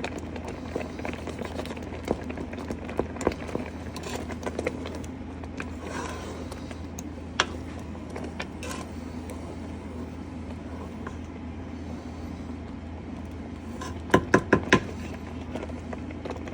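Kitchen handling sounds over a steady low hum: scattered light clicks and knocks, then a quick run of about five sharp knocks near the end.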